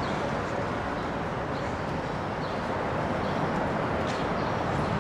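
Steady urban traffic noise with a few faint, short bird chirps over it.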